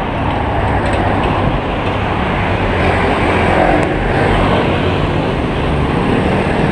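Road traffic passing close by: a steady motor-vehicle rumble that swells slightly around the middle.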